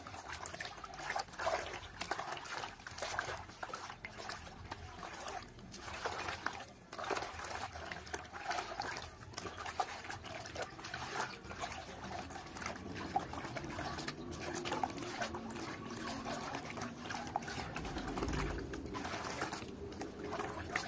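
Water sloshing and swishing in a plastic basin as a rubber-gloved hand stirs tunjung (iron sulfate) powder into mordant water to dissolve it, in irregular strokes.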